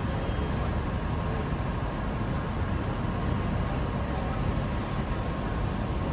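Steady city street traffic noise: a low, even rumble of passing vehicles.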